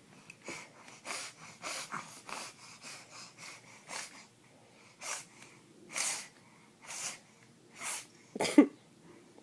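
Weird noises: a string of short breathy huffs and snorts, about one or two a second, with a short voiced squeak falling in pitch near the end.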